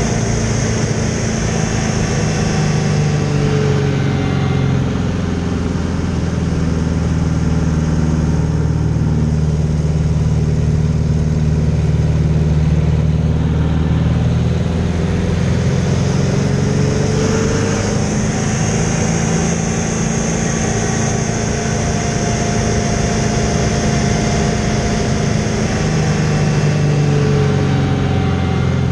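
Aerobatic biplane's piston engine and propeller running at power in flight, heard from inside the cockpit. The engine's note shifts a few times as the plane rolls through aerobatic manoeuvres.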